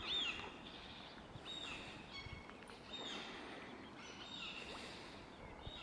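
Ducklings peeping: short, high, down-sliding peeps repeated about once a second over a faint steady hiss.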